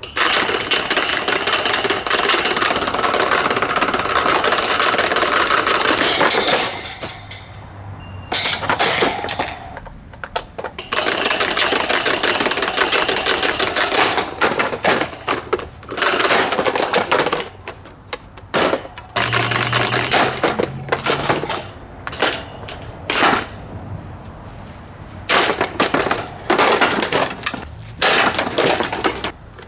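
SMC plastic table fan being smashed apart: long stretches of dense, rapid clattering and cracking, broken by short pauses.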